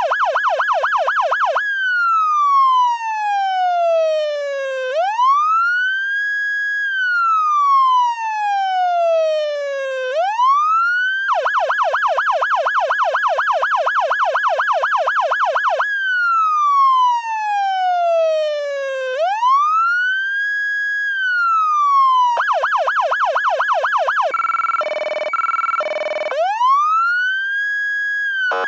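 Federal Signal Touchmaster Delta electronic siren sounding through a 100-watt siren speaker, switching between a fast yelp and a slow wail that falls and rises in pitch. Near the end, a short steady horn-like tone breaks in before the wail rises again.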